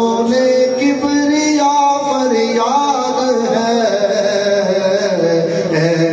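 A man singing a naat (Islamic devotional hymn) in long, drawn-out notes that slide up and down, with no words broken up into speech rhythm.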